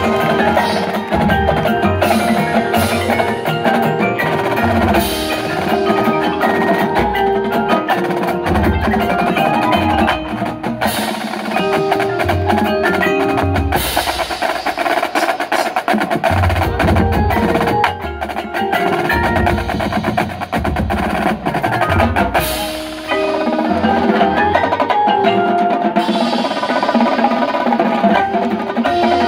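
College marching band playing a percussion-heavy passage: the drumline's snares, tenors and bass drums drive the rhythm with rolls and strikes, over the front ensemble's marimbas, xylophones and other mallet percussion with chimes. Deep bass drum hits land every few seconds.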